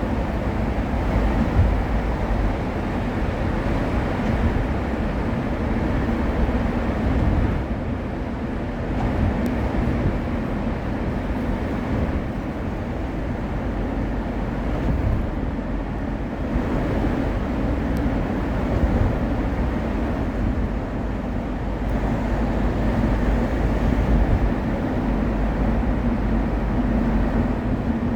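Steady road and traffic rumble inside a moving car with its windows open, driving through a road underpass: tyre and engine noise with wind coming in through the open windows.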